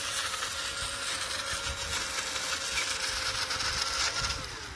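Electric motor and gear drive of a 6x6 remote-control truck whirring at a steady speed over a dense hiss, then winding down about four and a half seconds in. The drivetrain is running again after a stripped gear was repaired.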